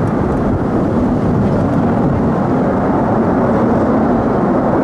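Loud, steady jet noise from a Lockheed Martin F-35A Lightning II's single Pratt & Whitney F135 turbofan engine.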